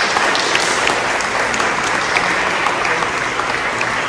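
Audience applauding: a steady wash of clapping with sharp individual claps standing out.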